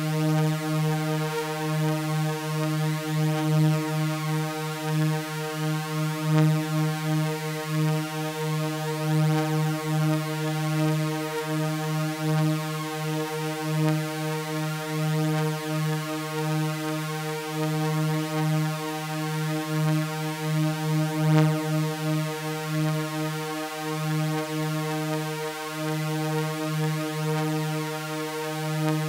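Synthesizer drone of layered sawtooth waves held on one unchanging pitch around 155 Hz, with many bright overtones. It wavers slightly in loudness but never stops or changes.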